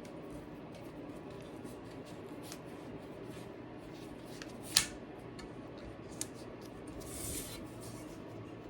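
Hands working a new rim strip onto a bicycle wheel rim: light rubbing and rustling with small clicks, one sharp click about five seconds in and a brief rustle near seven seconds.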